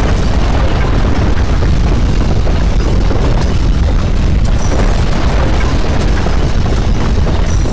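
Loud, continuous deep rumble of earthquake shaking, with a few faint clicks and rattles over it.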